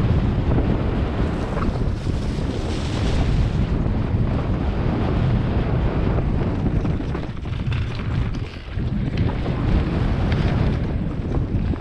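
Wind rushing over the camera microphone on a fast downhill mountain-bike descent, mixed with the rumble of tyres on a grassy dirt track and small knocks from the bumps. It eases briefly about eight seconds in.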